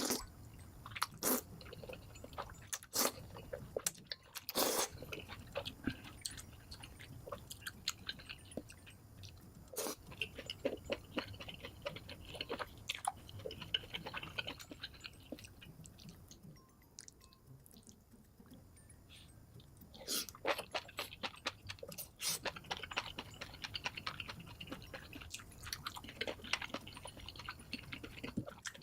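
Close-miked mukbang eating sounds sped up to double speed: rapid chewing, biting and crunching, with crisp, irregular crackles and a brief quieter lull past the middle.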